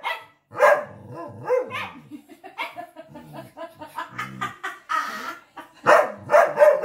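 Pet dog barking in short sharp barks, several in the first few seconds and a quick run of them near the end: impatient demand barking at food it is being made to wait for.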